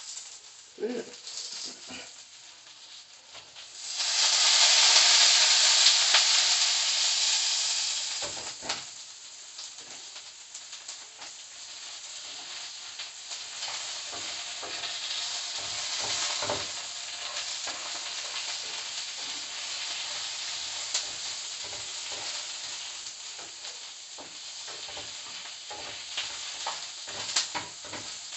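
Omelette eggs sizzling in a hot frying pan, with a spatula scraping and tapping against the pan. The sizzle jumps up loudly about four seconds in, then eases over the next few seconds into a steady, quieter sizzle.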